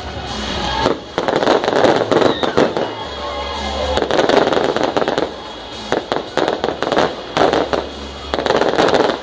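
Aerial fireworks going off in quick succession: sharp bangs with dense crackling, in two heavy volleys.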